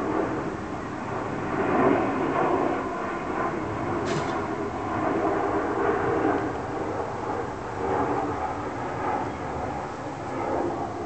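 Airplane passing overhead: a continuous rushing engine noise that swells and eases in level, with a brief click about four seconds in.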